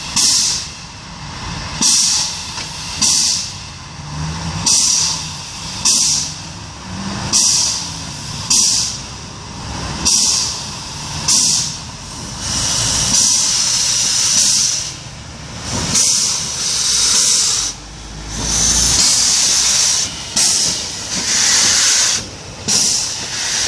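Narrow-gauge steam locomotive standing with steam up, letting off steam in sharp hissing puffs about once every second and a half. About three quarters of the way through, a longer, steady hiss of steam with a low rumble underneath.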